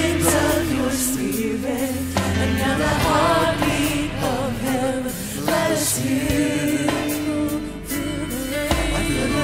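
Live church praise band playing a worship song, with voices singing over a steady beat.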